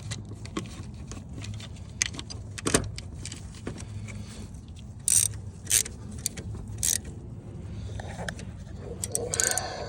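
Metal clinks and knocks of hand tools and a harmonic balancer puller being worked on an LT1 crank hub: scattered sharp clanks, a few loud ones about five to seven seconds in, over a steady low hum.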